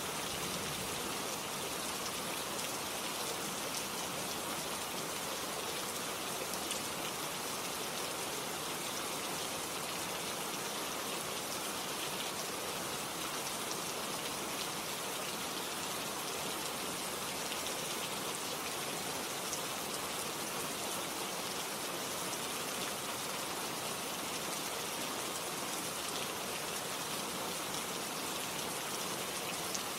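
Steady rain: an even hiss of falling rain with faint scattered drop ticks, unchanging in level, used as a relaxing sleep ambience.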